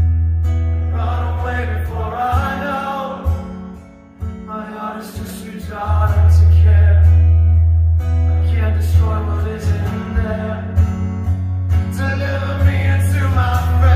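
A song with singing, guitar and a heavy, steady bass line, played through Canton Ergo floor-standing hi-fi speakers and heard in the room. The music drops quieter about four seconds in and comes back at full level about six seconds in.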